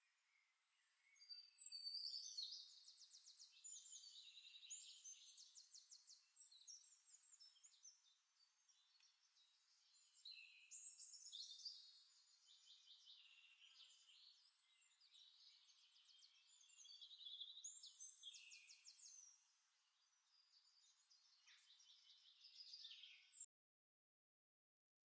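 Songbirds singing faintly in three long bouts of rapid high trills and whistled phrases, cutting off abruptly near the end.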